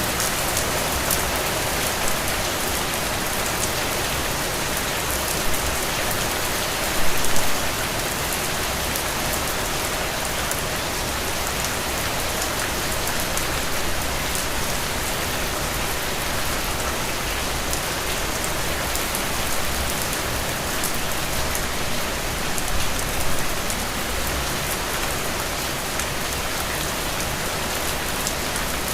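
Heavy rain falling steadily, with individual drops pattering close by and a couple of brief louder splashes, about a quarter of the way in and again later.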